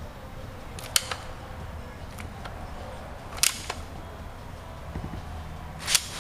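Three sharp knocks, roughly two and a half seconds apart, over a low steady background hum.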